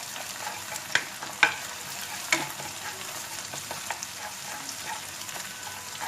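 An egg frying in hot oil in a frying pan, a steady sizzle, with sharp clicks of a utensil against the pan about a second in, half a second later and again just past two seconds.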